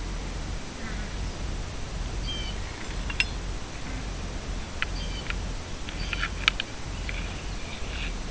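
Metal spoon scooping and scraping in sand and grit, with a handful of sharp clicks as it knocks the hard surface, the loudest about three seconds in and again past six seconds. Short high chirps come and go, over a steady low rumble of wind on the microphone.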